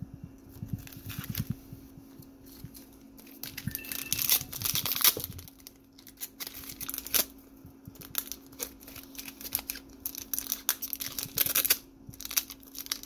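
Foil wrapper of a Panini Chronicles NASCAR trading card pack crinkling and rustling in the hands, with short tearing snaps as it is worked at to rip the top open. A faint steady hum runs underneath.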